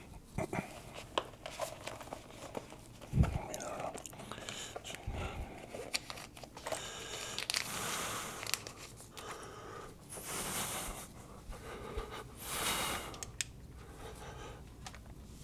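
Close handling noise on a microphone: rustling, rubbing and small clicks and knocks, with one sharp thump about three seconds in. It is typical of a mic being clipped on or fiddled with just before a sound check.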